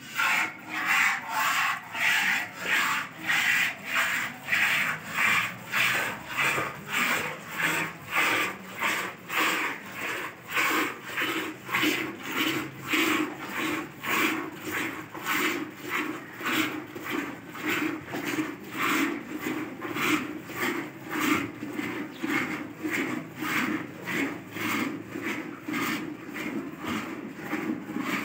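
Hand-milking a cow: streams of milk squirting into a metal pail in an even rhythm of about two squirts a second. The squirts start bright and grow deeper over time.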